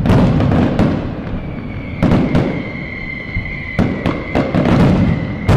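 Fireworks going off: a rapid, irregular series of sharp bangs, each followed by a rumbling tail, with a steady high whistle sounding over them from about a second and a half in until the final bang near the end.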